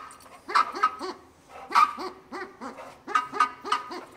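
Plush flamingo dog toy (Kong Shakers) honking when squeezed: a rapid string of short honks, about three or four a second.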